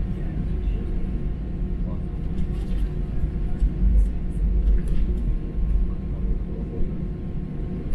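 Cabin noise inside an Airbus A320: a steady low rumble from the engines and airframe, swelling a little about four seconds in, with a few faint clicks.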